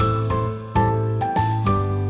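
Background music: an upbeat instrumental tune with bright melody notes over a steady bass line.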